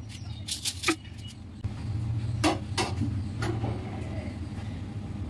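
Sharp clicks and knocks of cookware and utensils while rotis are rolled and cooked on a tawa: a cluster in the first second and two more about halfway through, over a steady low hum that grows louder about a second and a half in.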